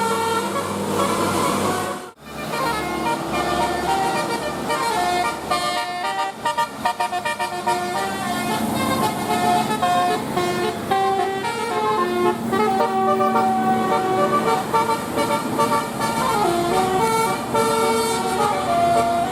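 Indonesian bus 'telolet basuri' musical horn playing a tune as a run of held notes stepping up and down in pitch. It breaks off abruptly about two seconds in, then another horn melody starts.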